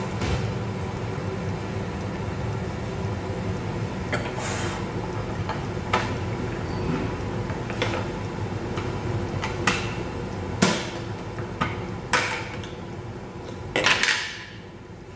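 Scattered clicks and knocks of plastic parts of a hand-cranked spiral vegetable slicer being handled and set down on a glass table, over a steady low rumble that drops away near the end. The loudest knock comes about two-thirds through.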